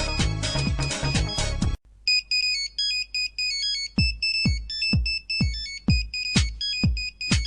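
Nokia mobile phone ringtones. A busy electronic ringtone cuts off about two seconds in, and after a brief gap another starts with a high beeping melody. About four seconds in, a steady low thumping beat of roughly two beats a second joins the melody.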